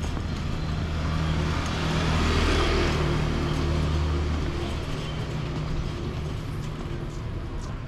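A motor vehicle passing along the street: a steady low engine hum and tyre noise that swells about two seconds in and then fades.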